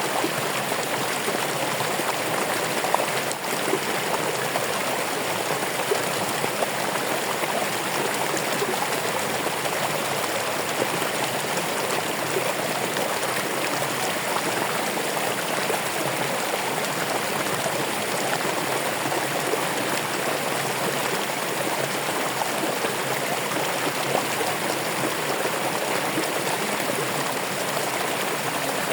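Running water in a stream, a steady rushing and splashing with small bubbling ticks throughout.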